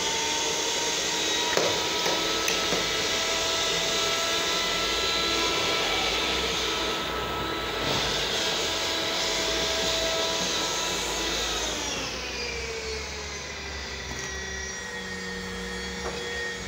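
Electric pipe threading machine running steadily, with a motor whine; its pitch falls and settles lower about twelve seconds in.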